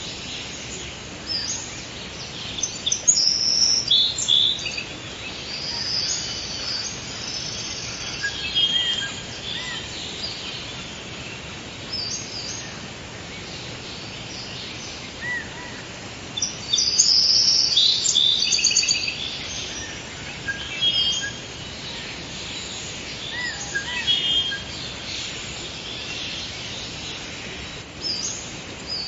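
Forest ambience: several songbirds chirping and trilling over a steady background hiss, with the busiest bursts of song a few seconds in and again just past the middle.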